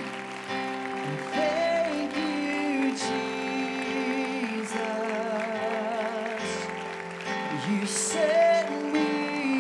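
Congregational worship song: a singer's voice with vibrato comes and goes over steady, sustained instrumental chords.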